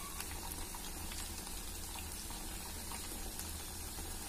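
Ghevar batter frying in very hot ghee inside a ring mould: a steady bubbling sizzle with fine crackles, the batter still cooking and not yet set.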